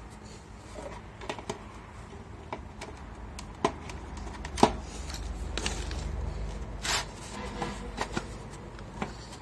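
The cover of an electric insect-killer lamp being fitted back on by hand: scattered clicks and knocks of the parts, with a few sharper taps about halfway through, over a low hum.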